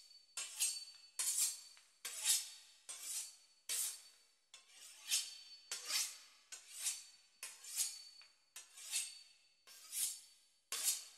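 A knife sawing back and forth through the crisp pastry crust of a beef Wellington, a short crunchy rasp on each stroke, a little more than one stroke a second.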